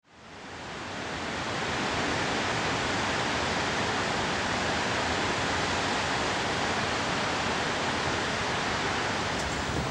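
Steady roar of ocean surf on a beach, an even rushing noise that fades in over the first two seconds and then holds level.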